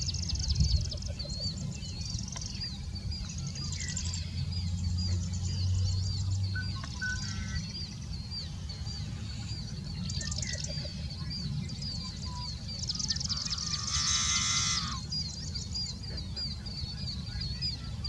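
Male yellow-headed blackbird calling: scattered clicky notes, then, about thirteen seconds in, its long buzzy scrape of a song lasting nearly two seconds.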